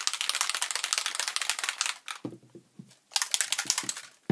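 Small Distress Oxide Spray bottle being shaken hard by hand, its contents rattling in a fast run of clicks. The shaking goes in two bouts with a short pause between, and a single knock comes near the end.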